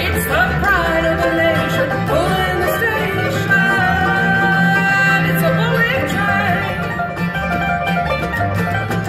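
Acoustic bluegrass band playing live: banjo, mandolin, acoustic guitar, fiddle and upright bass, with sliding melody lines in the first seconds over a steady bass.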